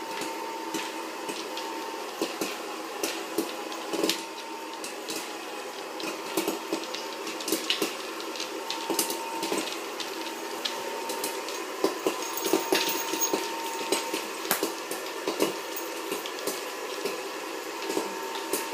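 A dog eating popcorn off a wooden floor, with irregular sharp crunches and clicks, over a steady mechanical hum with a faint high whine.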